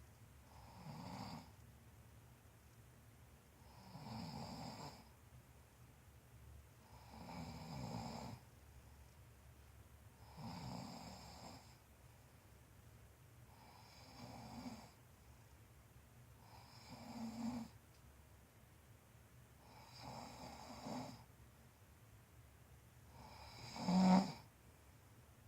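A sleeping man snoring: one snore about every three seconds, eight in all, the one near the end the loudest.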